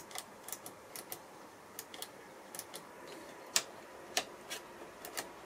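Irregular sharp clicks of a Soviet S1-118 oscilloscope's front-panel controls being worked by hand: push-button switches pressed and a rotary switch knob clicked through its detents.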